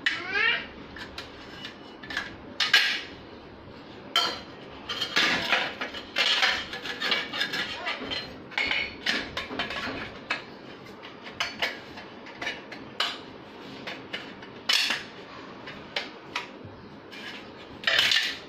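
Irregular metallic clinks and knocks as rungs are pushed and tapped into the drilled holes of aluminium ladder rails and the frame is handled.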